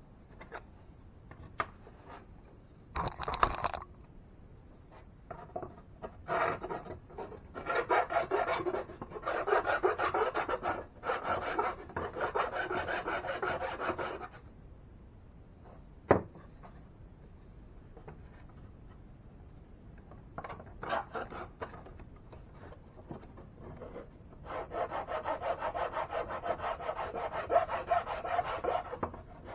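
Hand-sanding the edge of a thin plywood piece: fast, scratchy back-and-forth strokes in two long spells, with a few shorter bursts and one sharp knock between them.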